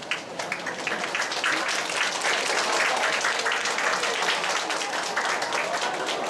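An audience clapping, a crowd's applause that starts just after the opening and keeps on steadily, with a few voices under it.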